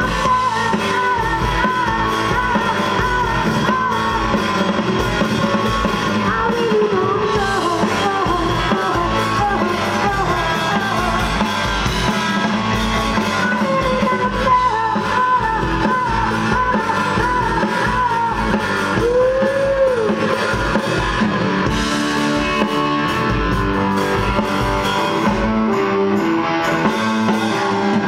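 Live rock band playing: electric guitar through Marshall amplifiers, drum kit and keyboards, with a lead singer.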